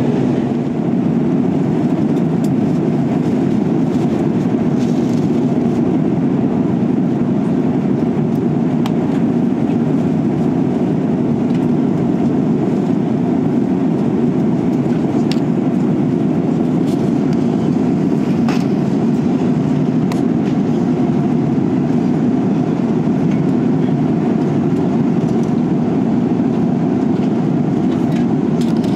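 Steady cabin noise of an Airbus A330-300 in flight, heard from a window seat: an even, unbroken rumble of engines and airflow.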